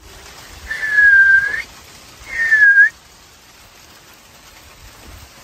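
A person whistling two notes to call a dog: a longer note of about a second, then a shorter one, each a single clear tone that dips slightly in pitch.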